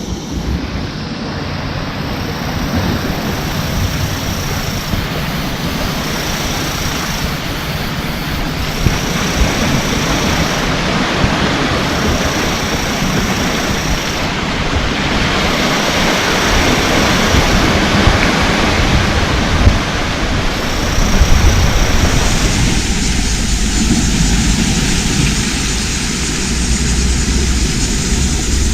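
Steady rush of ocean surf with a heavy low rumble, and a short high-pitched buzz that recurs about every two seconds through most of it.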